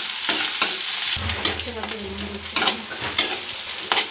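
Sliced onions, green chillies, garlic and ginger sizzling in hot oil in a kadhai while a spatula stirs them, knocking and scraping against the pan several times.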